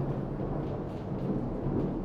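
Heavy rain with a low, steady rumble of thunder underneath.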